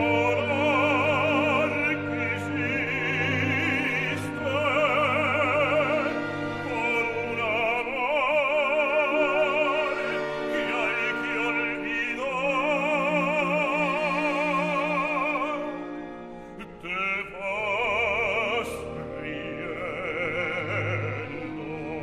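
Operatic baritone singing a zarzuela romanza in Spanish with wide vibrato over a full symphony orchestra, with a brief breath around two-thirds through; near the end the voice drops out and the orchestra carries on alone.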